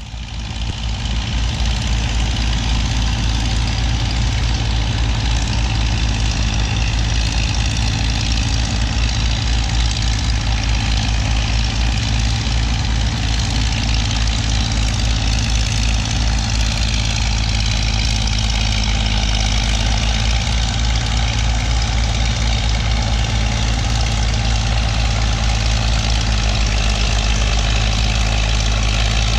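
Diesel engines of several antique crawler bulldozers running steadily under load as they push dirt, a dense, low, fast firing beat, fading in over the first couple of seconds.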